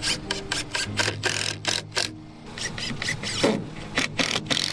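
Hammer blows nailing wooden battens and plywood formwork panels together, a quick run of about five strikes a second, a brief pause, then another run, over a faint low engine hum.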